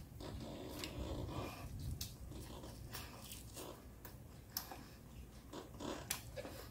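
Quiet close-up mouth sounds of a person chewing crispy pata (deep-fried pork leg): soft scattered clicks and lip smacks every second or so.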